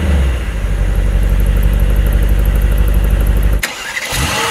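Mercedes-AMG GT 63's 4.0-litre V8 at a steady fast idle just after start-up, a deep, rapid pulsing burble. About three and a half seconds in it drops abruptly to a quieter engine sound, with a brief rise in pitch near the end.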